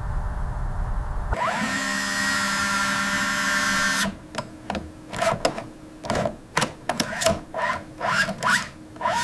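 A low mechanical rumble, then a drill-like power tool whirring steadily for about three seconds, then a run of irregular clicks and knocks.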